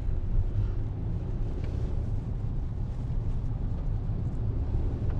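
Steady low rumble of a car's engine and tyres heard from inside the car.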